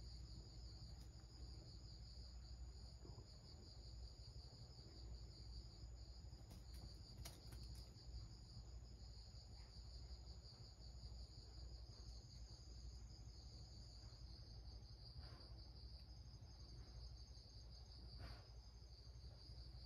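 Faint, steady, high-pitched chirring of insects going on without a break, over a low background rumble, with a couple of faint clicks.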